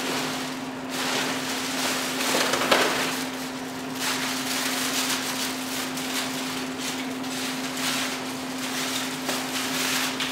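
Thick clear plastic bags rustling and crinkling as a bag of king crab legs is pulled out of a plastic-lined box, with a sharper crackle about three seconds in.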